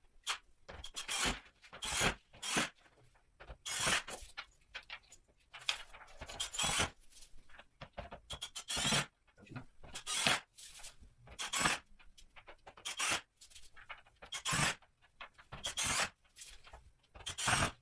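Irregular scraping and rustling bursts from handling flat-pack furniture parts and fittings on cardboard while assembling a cabinet frame.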